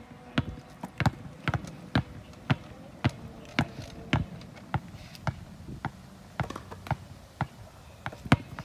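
Basketballs bouncing on an outdoor asphalt court as they are dribbled, a run of sharp bounces about two to three a second, irregularly spaced.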